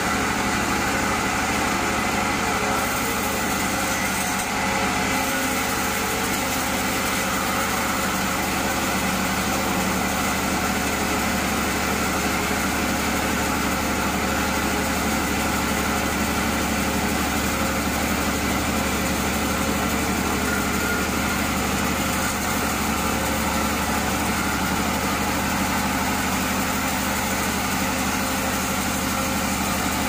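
Large band sawmill running steadily, its blade sawing through a big burl log, a constant machine drone with no break.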